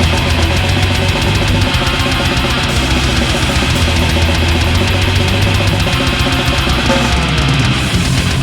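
Black metal band playing an instrumental passage: fast, dense drumming with distorted electric guitars and bass, no vocals.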